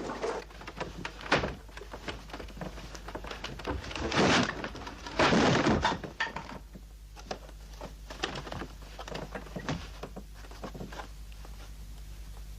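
A run of knocks and thuds, with two louder, longer clattering noises about four and five seconds in, then lighter taps.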